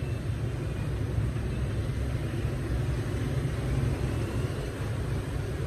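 Steady low background rumble with no distinct single event.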